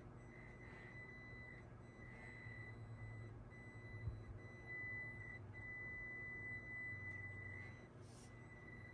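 Small-scale RC crawler truck's electric motor and gear drive running at low speed: a thin, steady high whine with a low hum beneath it, swelling a little in the middle and easing off near the end.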